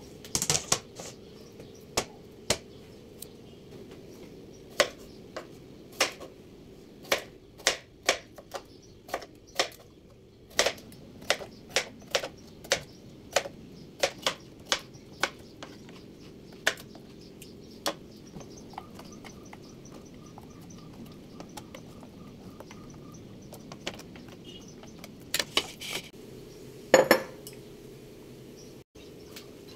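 Kitchen knife slicing a cucumber on a plastic cutting board: a long run of sharp single chops, about one or two a second. Near the end, a few louder knocks and clinks.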